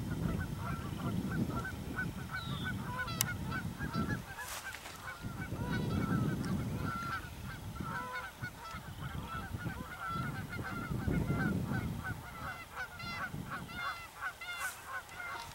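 A flock of Canada geese honking in a dense, continuous chorus of short calls, with gusts of wind rumbling on the microphone now and then.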